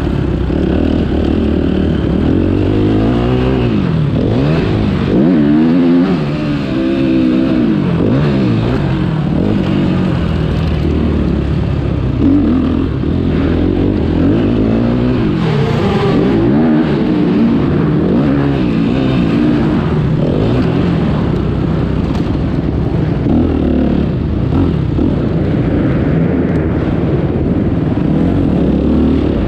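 Motocross dirt bike engine running loud, its pitch rising and falling again and again as the throttle is opened and shut around the track.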